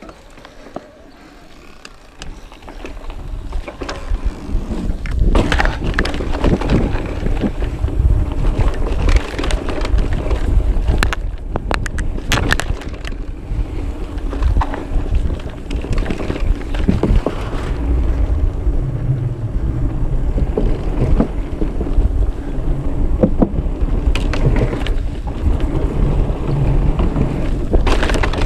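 Mountain bike descending a dirt trail: tyre rumble and wind buffeting the camera microphone, with frequent sharp knocks and rattles from the bike over bumps. It starts quiet and grows loud about two to four seconds in.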